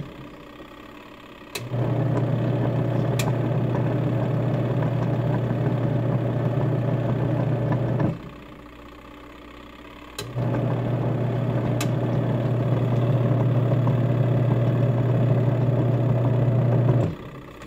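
Twin tub washing machine's pulsator motor on the normal wash setting: it runs with a steady hum for about six seconds, stops for about two seconds, then runs again for about seven seconds before stopping just before the end.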